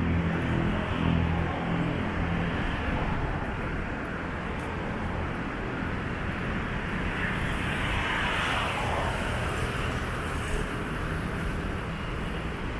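Road traffic on a wide multi-lane city road: cars and motorbikes going by. One vehicle's engine hum fades away in the first second or so, and another vehicle swells up and passes about two-thirds of the way through.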